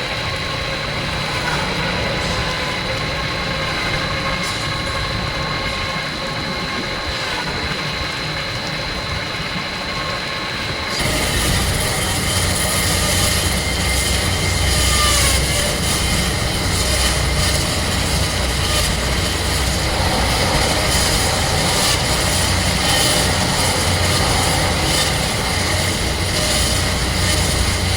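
Diamond wire saw running as it cuts a reinforced concrete beam: a steady mechanical drone that turns suddenly louder and fuller about eleven seconds in.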